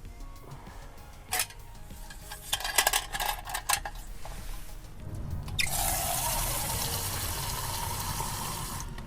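Water poured into a container in a steady stream that rises slightly in pitch as it fills, lasting about the last four seconds. Before it come a few clicks and clinks of handling.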